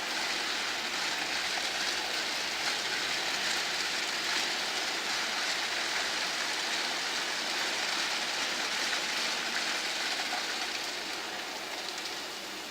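Automatic roller-over car wash machine running, with a steady hiss of water spray and rushing noise that eases off slightly near the end.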